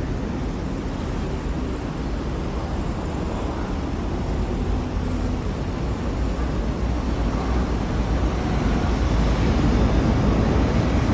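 MTR East Rail line R-Train electric multiple unit running into a station platform: a steady low rumble that grows a little louder over the last few seconds.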